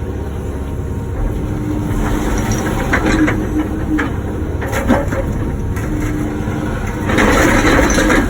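Wacker Neuson ET145 excavator's diesel engine running with the hydraulics working, a few sharp knocks along the way. About seven seconds in comes a louder rough scraping stretch, the bucket working against broken blacktop and concrete.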